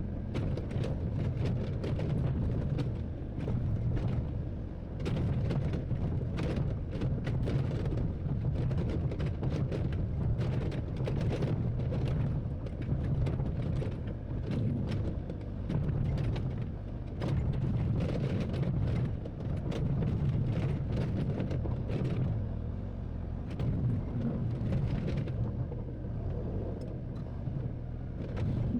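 Hydraulic excavator's diesel engine running under load, swelling and easing every few seconds as it works, with frequent short knocks and clicks over the rumble.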